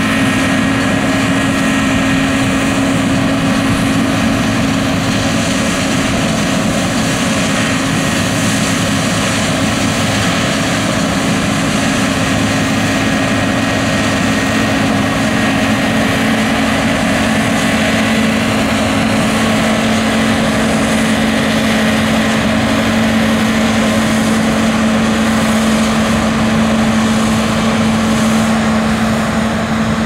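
New Holland CSX7060 combine harvester running steadily while harvesting barley. A loud, even machine drone with a strong steady hum that settles slightly lower in pitch about halfway through.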